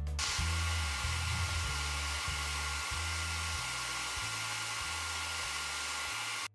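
TIG welding arc, a steady hiss that cuts off abruptly near the end.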